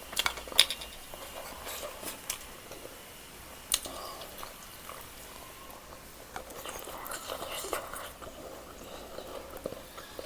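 A person eating close to the microphone, chewing and biting with wet mouth sounds. There are a few sharp clicks or crunches near the start and another a little under four seconds in.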